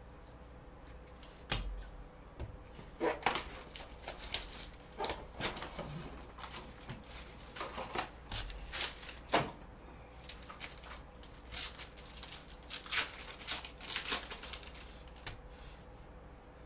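Trading cards and a clear rigid plastic card holder handled by gloved hands: irregular clicks, taps and short rustles as cards are slid into the holder, set down on the table and leafed through.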